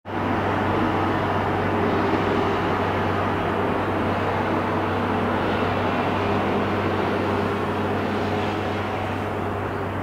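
Steady rushing drone with a constant low hum underneath, starting abruptly and easing slightly near the end.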